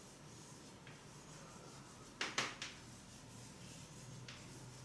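Faint scraping and tapping of writing on a board over quiet room tone: a quick cluster of short strokes a little past two seconds in and one weaker stroke near the end.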